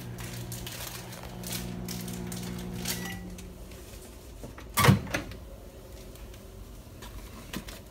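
Microwave oven running with a steady hum that stops about three and a half seconds in, just after a short beep; about five seconds in comes one loud clunk, the microwave door being opened.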